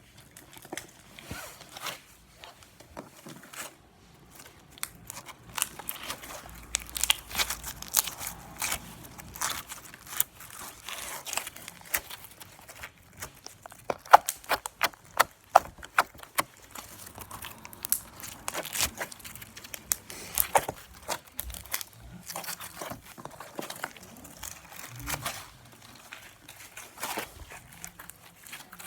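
Irregular crinkling and crackling, many sharp clicks coming unevenly, densest through the middle.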